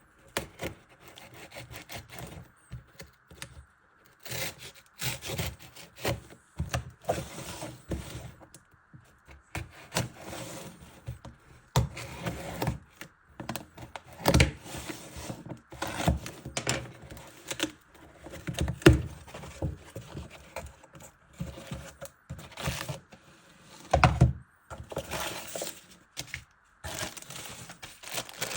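Cardboard product box being handled and opened by hand: a string of irregular taps, knocks, rubs and scrapes.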